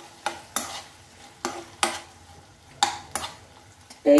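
A spatula stirring chicken and onions frying in butter in a non-stick kadai: about seven short, sharp scraping strokes at uneven intervals over a faint sizzle.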